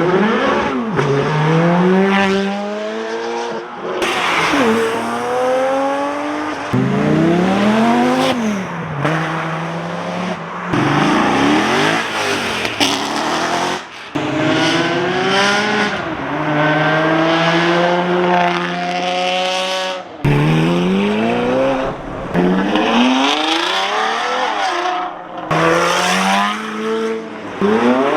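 Supercar engines revving and accelerating hard in a run of short clips, each pitch climbing then dropping at gear shifts, with abrupt cuts from one car to the next every few seconds.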